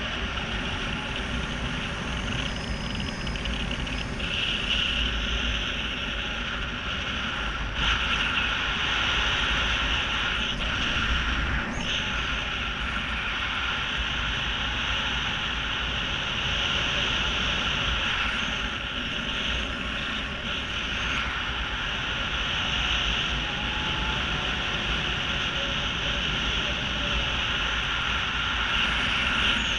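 Steady wind rush over a camera's microphone during parachute canopy flight.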